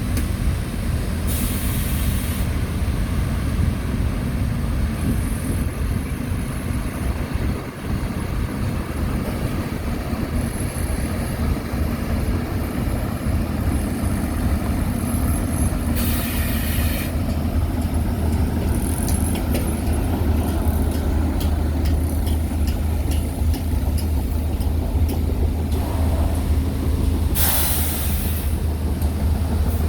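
Heavy diesel earthmoving machinery running steadily with a deep engine drone. Three short air-brake hisses come through it: one near the start, one about halfway and one near the end.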